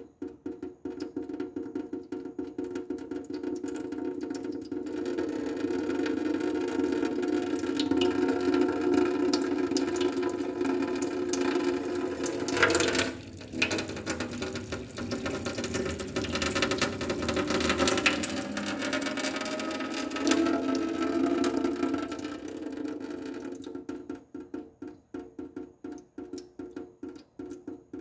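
Water dripping fast from a faucet into a sink, each drop a short pitched plink. The drips run together densely through the middle and thin to separate drops, several a second, near the end.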